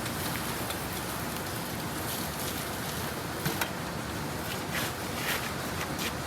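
Pressure washer spraying water onto a truck's dirty frame: a steady hiss of spray and spatter, with a few short sharp spurts, two close together in the middle.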